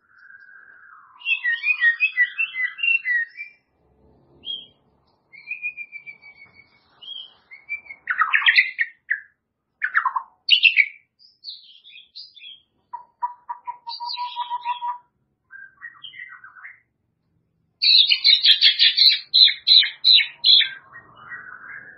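White-rumped shama (murai batu) singing a varied song of clear whistles, sweeping slurs and quick repeated notes, phrase after phrase with short pauses between. The loudest phrase, near the end, is a fast chatter of rapidly repeated notes.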